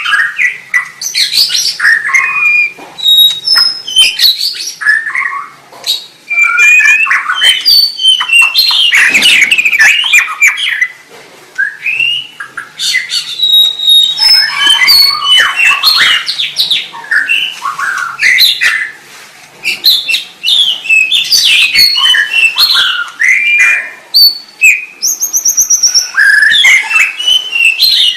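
White-rumped shama (murai batu) singing a fast, varied song of whistles, rising and falling slurs and chattering notes, with only brief pauses. Near the end comes a rapid, very high trill.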